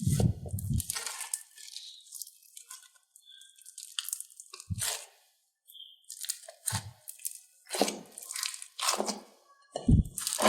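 Hands squeezing, pressing and pulling apart slime, making irregular crackles and pops, with a few short low thumps as it is pressed down.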